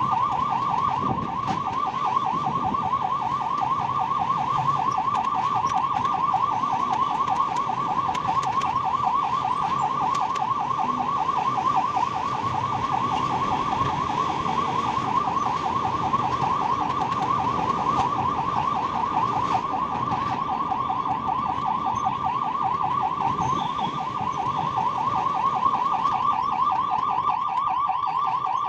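Ambulance electronic siren sounding a fast, steady warble, heard from inside the cab, over engine and road noise.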